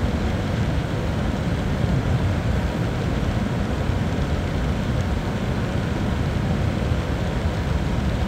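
Rain falling steadily on a car's roof and windshield, heard from inside the cabin: a dense, even hiss over a low rumble.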